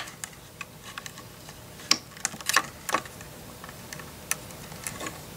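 Irregular small plastic clicks and taps of LEGO pieces being handled: the bunny figure set into the hutch and the hutch's hinged roof folded shut.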